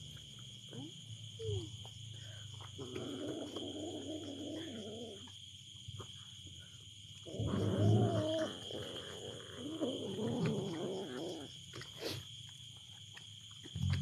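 Domestic cats growling over fish as they eat, in three drawn-out, wavering spells. A sharp click about twelve seconds in.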